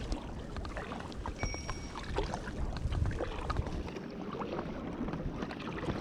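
Kayak paddling: a double-bladed paddle dipping in and out of calm water, with steady small splashes and drips off the blades and a low rumble of wind on the microphone.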